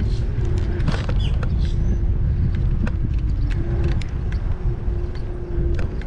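Wind buffeting the microphone on a moving bicycle, with a steady hum and a few light clicks and rattles.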